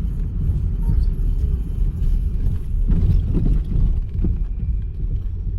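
Steady low rumble of a moving car's engine and tyres heard inside the cabin, with a few faint short sounds about three to four seconds in.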